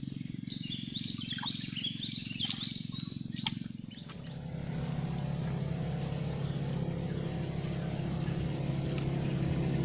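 Outdoor ambience: a steady low hum with birds chirping for the first few seconds. About four seconds in, the sound shifts to a steadier low drone.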